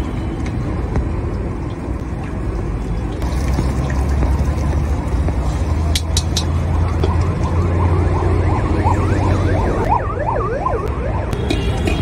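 Steady low rumble of a street stall's wok burner and traffic. About six seconds in, a few sharp clinks of a steel ladle against an iron wok. From about seven to eleven seconds in, a fast wavering siren-like wail.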